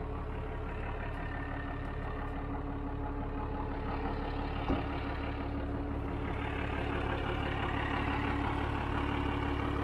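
12-valve 5.9 Cummins inline-six diesel idling steadily, with a little bark to it, after years parked. A single knock about halfway through; the engine grows slightly louder and brighter in the second half.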